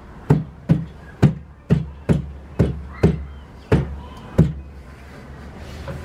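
Hand knocks on a bowl's rim, pushing it down into a hole cut in a refrigerator's high impact polystyrene (HIPS) liner: about nine sharp knocks, roughly two a second, stopping about four and a half seconds in.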